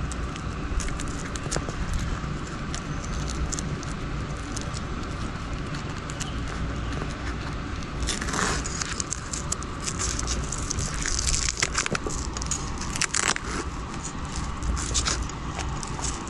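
Hook-and-loop (Velcro) strap of a bike frame bag being pulled and pressed shut around the frame tube: scattered crackling rasps and handling clicks, the loudest about halfway through and again a few seconds later, over a steady low background rumble.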